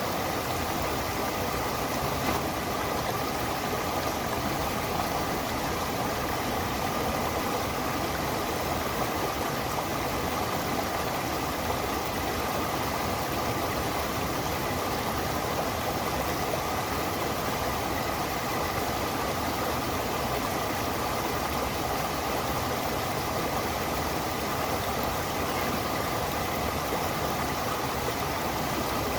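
Running water of a stream or waterfall, a steady even rush.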